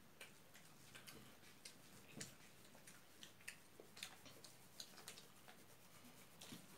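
Faint eating sounds: irregular little clicks and smacks of chewing and lips, and of fingers working rice on plates.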